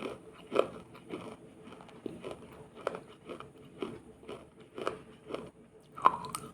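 Close-miked biting and chewing of brittle 'water crunch' (clay soaked in water and dried hard), giving a series of sharp crunches at uneven spacing, about one or two a second.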